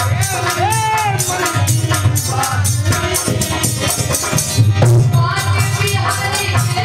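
Devotional bhajan music: a woman's sung melody over fast, steady percussion, amplified through a PA.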